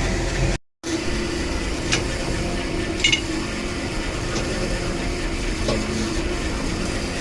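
Steady machine hum with a few light metallic clinks. The sound cuts out completely for a moment just under a second in.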